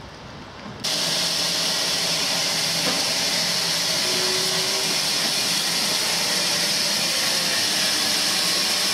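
Steam hissing loudly and steadily from GER Y14 (LNER J15) steam locomotive No. 564, starting abruptly about a second in.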